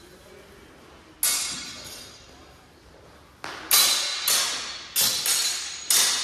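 Steel training longswords clashing blade on blade, each strike ringing and fading. A single clash comes about a second in, then a quick exchange of five clashes in the last three seconds.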